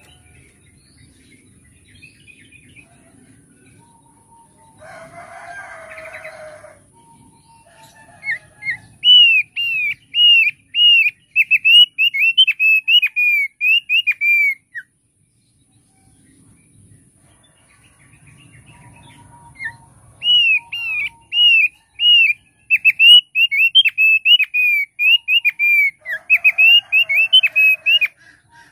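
Caged opior paruh tebal, a white-eye, singing two bouts of fast, repeated down-slurred whistled notes, each several seconds long. A brief rough noise comes about five seconds in, and again faintly near the end.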